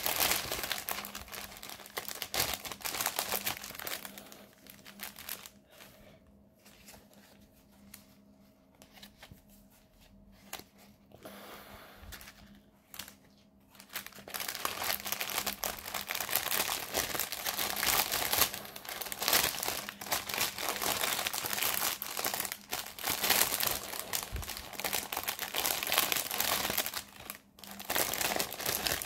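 Diamond painting kit packaging crinkling and rustling as it is handled. It goes much quieter for about ten seconds after the first few, then the crinkling starts again.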